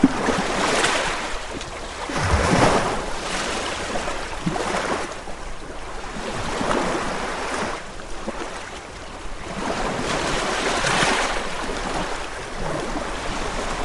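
Ocean surf: waves breaking and washing in, rising and falling in repeated surges, the strongest about two and a half seconds in and again around eleven seconds.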